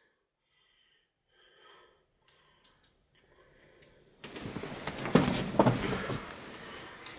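Near silence with faint breathing for about four seconds, then, suddenly, cloth rustling and handling noise close to the microphone as a T-shirt is moved about, with a few louder bumps a second later.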